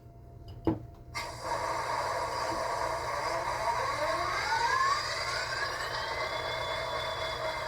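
Econami sound decoder in an HO-scale model of an EMD SD50 playing its diesel start-up sequence through the locomotive's small speaker. A sharp click comes just before a second in, then the engine sound starts and a whine rises in pitch over a few seconds before settling into a steady idle.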